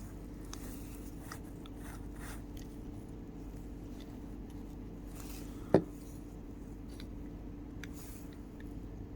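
Plastic gears being fitted into a vending-machine slot motor's gearbox: faint light clicks and scraping of plastic parts, with one sharper click about six seconds in.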